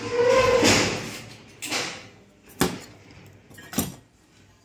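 A brief rush of noise lasting about a second, then three sharp knocks about a second apart: tools and a TV main board being handled on a metal TV chassis during desoldering.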